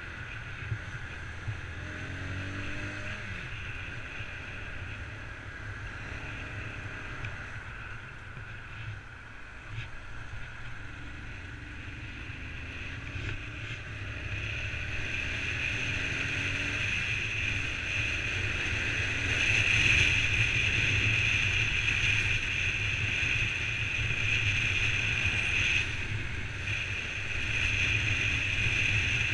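Honda CBR125 motorcycle's small single-cylinder four-stroke engine running as the bike rides along, mixed with wind rushing over the camera microphone. The sound grows louder from about halfway through as the bike picks up speed.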